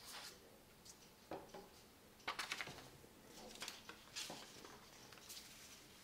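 Scissors snipping through a sheet of paper, with the paper rustling and crinkling as it is handled and the cut-off strip pulled away. About six short, crisp bursts, the loudest about two and a half seconds in.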